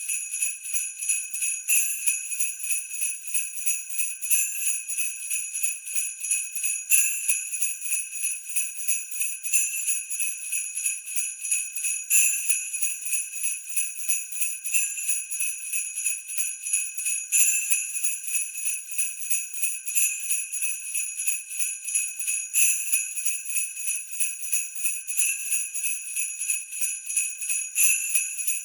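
Sleigh bells shaken in a steady jingling rhythm, about four shakes a second, with a stronger accent every couple of seconds.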